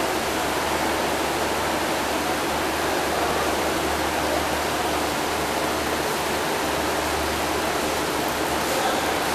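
Steady, even rushing noise of aquarium aeration and water circulation, over a constant low hum from the tank's pumps.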